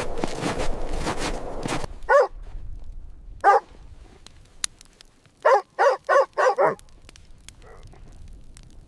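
About two seconds of loud, dense noise, then a dog barking: a single bark, another about a second later, and a quick run of four barks.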